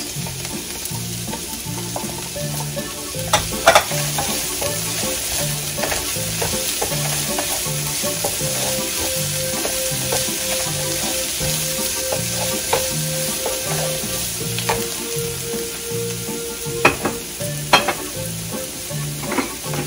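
Peas, carrots, onion and garlic sizzling in hot oil in a frying pan while a wooden spatula stirs them, with a few sharp taps of the spatula against the pan, a pair about three seconds in and another pair near the end.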